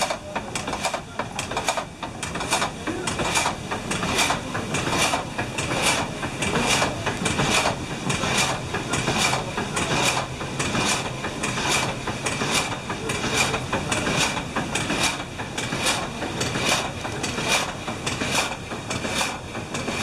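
Water-powered up-and-down frame saw (oppgangssag) running and cutting a large pine log. Its reciprocating blade makes a regular rhythm of strokes, about two a second, over the constant rumble of the mill's wooden machinery.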